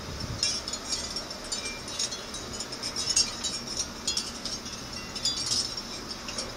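Wind chimes tinkling irregularly in the wind: many light, high-pitched strikes at uneven intervals, some ringing briefly.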